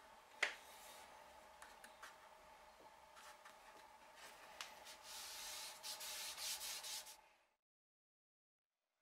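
Hands rubbing and pressing a thin quarter-sawn oak veneer flat onto a glued panel: soft dry rubbing that builds into several louder hissing strokes, with a sharp tap about half a second in. It cuts off suddenly into silence about a second and a half before the end.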